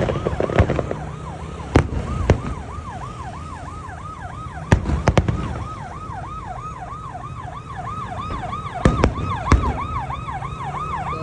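An emergency vehicle siren wailing in a fast yelp of about three sweeps a second, while aerial fireworks go off in sharp bangs, a pair about 2 seconds in, another pair about 5 seconds in and another about 9 seconds in.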